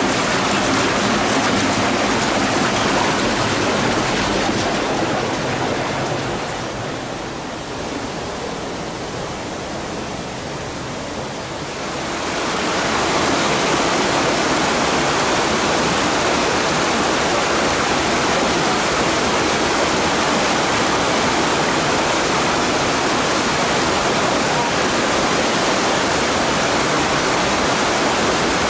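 Small spring-fed waterfall pouring over rocks into a shallow stream: a steady, dense rush of falling and splashing water. It grows softer and duller for several seconds about five seconds in, then returns to full strength.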